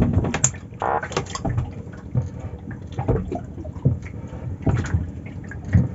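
Freshly caught fish and an eel flopping on a wet boat deck: scattered short wet knocks and splashes.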